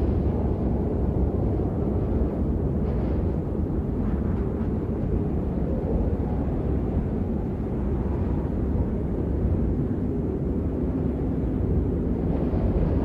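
Strong wind buffeting the microphone: a steady low rumble that holds at the same level throughout.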